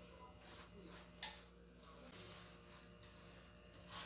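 Faint scraping and a few soft taps of a silicone spatula stirring dry sugar in a stainless steel saucepan, over a low steady hum.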